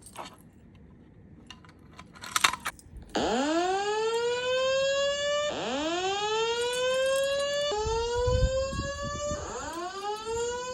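Wheelock E60 speaker sounding a fire alarm whoop tone: a rising sweep that climbs steeply, then levels off, restarting about every two seconds, four times in all. It is preceded about two seconds in by a short clatter.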